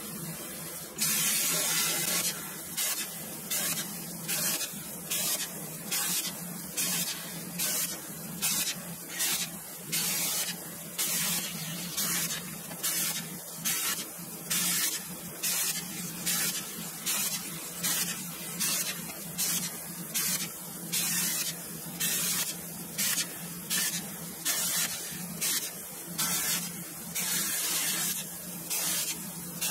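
CNC plasma cutter torch firing in short hissing bursts, about one a second, each a brief cut of a small slot in steel plate; the first burst, about a second in, runs longer. A steady low hum runs underneath.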